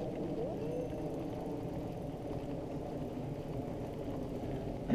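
Steady low rumble of wind on a helmet-mounted camera's microphone, with faint voices of nearby riders in the first second.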